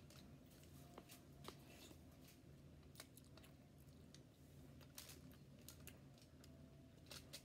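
Near silence: a low steady room hum with a few faint, short clicks scattered through it.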